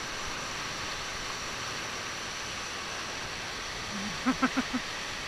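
Steady rushing of a large whitewater rapid close by. About four seconds in, a person's voice gives four short, quick sounds, the loudest thing here.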